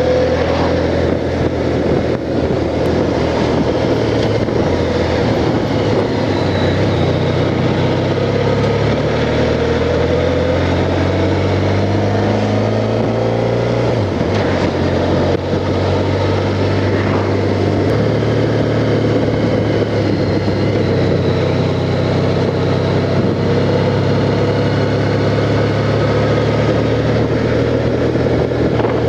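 Honda Crosstourer's V4 engine running under way, heard from a camera on the motorcycle over a steady rush of noise. About halfway through, the engine note climbs for a few seconds and then drops sharply.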